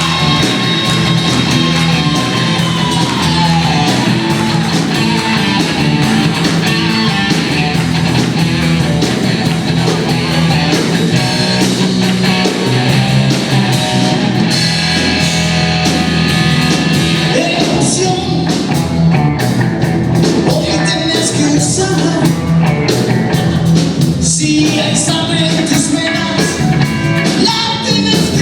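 Blues-rock band playing live: guitar, bass and drums, with singing.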